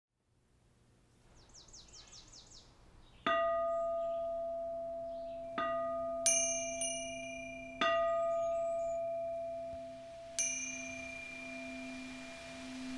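Song intro with struck bell tones: a faint quick run of descending chimes, then five bell strikes that ring on and overlap, over a low held drone that swells near the end.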